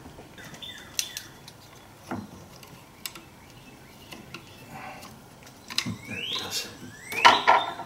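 Scattered light clicks and taps of metal tools and engine parts being handled, with a few quick rising bird chirps near the end.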